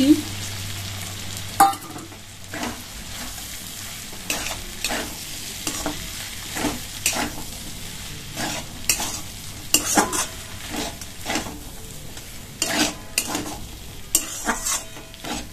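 Metal spatula scraping and knocking against an aluminium kadai, about twice a second, as sago pearls are stirred into frying vegetables, over a low sizzle.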